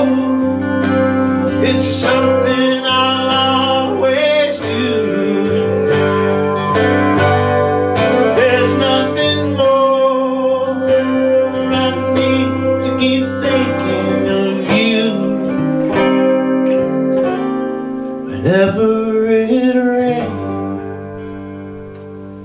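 Band playing the instrumental ending of a song on electric and acoustic guitars, the final chord dying away over the last couple of seconds.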